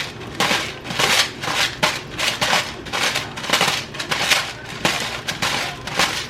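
Plastic food packaging crinkling and crackling as it is handled, in quick repeated bursts a few times a second.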